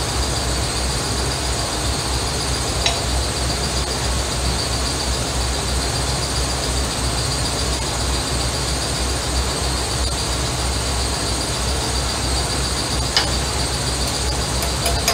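Steady hiss with a constant high-pitched whine and a low hum. Over it, faint metal clinks from a hand wrench working at the car's upper ball joint come about three seconds in and again near the end.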